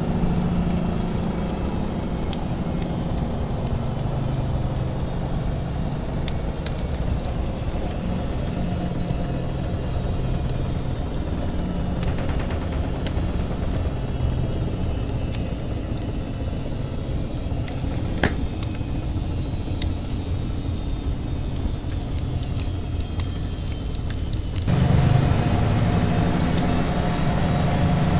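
Washing machine running with a steady low hum, mixed with a few scattered sharp crackles of a wood fire. About 25 s in the hum abruptly gets louder.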